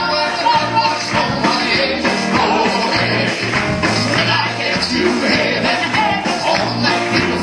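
Upbeat live gospel band music with a steady beat, during an instrumental stretch between sung choruses.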